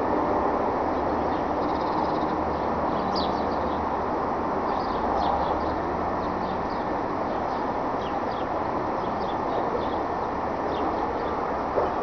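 Steady outdoor background rumble with scattered short, high bird chirps throughout, and one brief louder sound just before the end.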